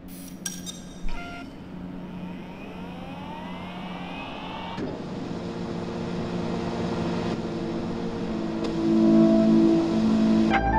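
Delta 3D printer's stepper motors running, with several whines rising in pitch as the arms move. There are two sharp clicks in the first second or so, and a low sustained drone that grows steadily louder throughout.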